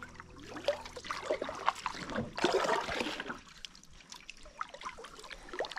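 Double-bladed kayak paddle stroking through creek water, with blades dipping and water splashing and dripping off them in several irregular bursts. The loudest stroke comes about two and a half seconds in.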